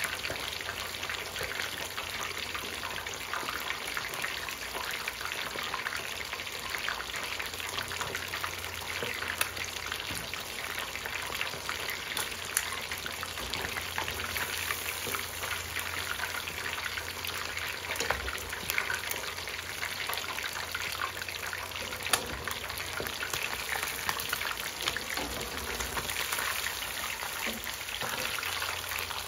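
Whole snapper deep-frying in hot oil in a black pan: a steady, dense crackling sizzle, with a few sharp clicks.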